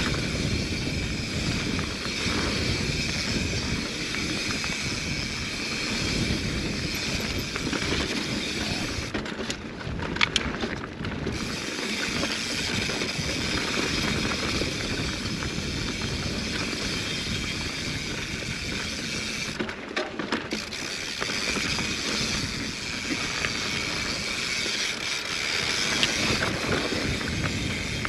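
Mountain bike rolling down a dirt singletrack: tyres running over dirt and loose rock, with the rear freehub's ratchet buzzing as the bike coasts. The buzz drops out briefly twice, about a third and two thirds of the way through.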